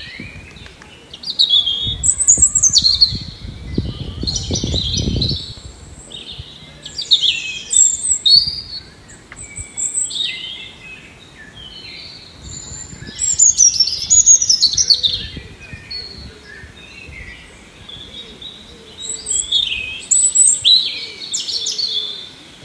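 Small clay bird whistle blown in repeated spells of quick, high warbling chirps, with short pauses between spells.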